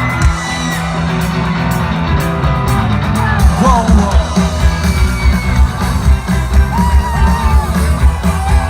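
Rock band playing live: the instrumental intro of a song, with heavy drums and bass underneath guitar, and a few scattered shouts from the audience.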